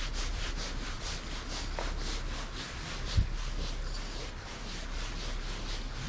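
Spinning reel being cranked steadily, a rhythmic rasping whirr of about four strokes a second. One dull thump about three seconds in.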